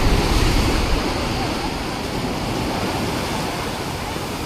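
Sea surf washing onto a sandy beach, a steady wash of noise, with wind buffeting the microphone in the first second.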